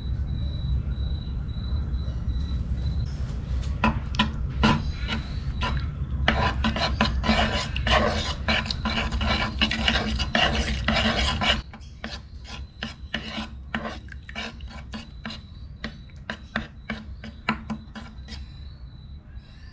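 Metal spoon scraping against a wooden bowl while stirring a creamy mixture. A few scrapes, then fast continuous scraping for several seconds, then slower separate strokes.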